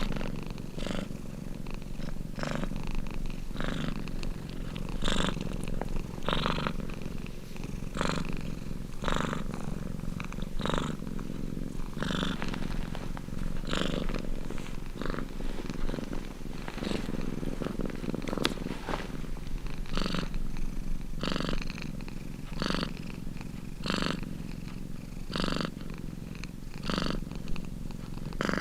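Domestic cat purring steadily, swelling and easing in an even rhythm about once every second and a half, over a constant low hum.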